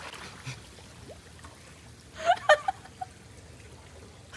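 Swimming pool water trickling and lapping as a man wades in it just after diving in, with a brief louder burst of sound a little after two seconds in.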